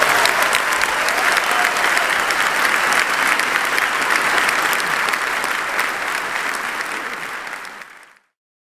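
Large audience in a hall applauding, a dense steady clapping that dies away and cuts off near the end.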